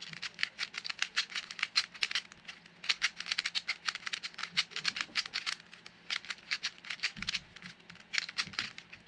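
Rubik's cube being turned quickly by hand, its plastic layers clicking several times a second with a few short pauses. This is the last stretch of a solve.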